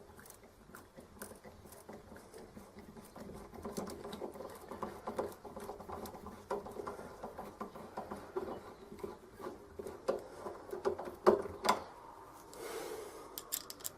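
A hand screwdriver driving a latch screw into the edge of a wooden door: a run of small, irregular clicks and creaks as the screw turns, with a sharper click about eleven seconds in.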